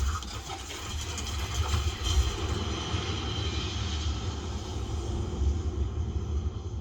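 Samsung HW-Q900A 7.1.2-channel soundbar playing a Dolby Atmos demo soundtrack: a rumbling, vehicle-like effect with heavy, steady bass.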